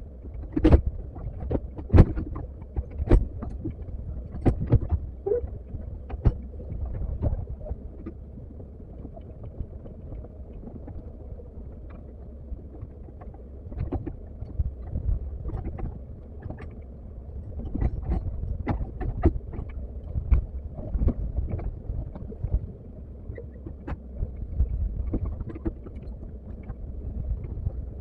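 Komatsu excavator's diesel engine running with a steady low rumble, broken by frequent sharp knocks and clanks of the machine at work.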